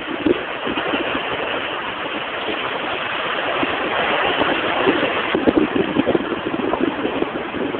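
Wind buffeting the phone's microphone in irregular gusts over the steady wash of the sea.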